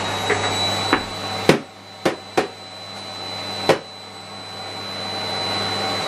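Miele Complete C3 Powerline canister vacuum cleaner running with a steady high whine over a low hum. Four sharp knocks fall in the middle. The level dips after the first knock and then slowly builds back up.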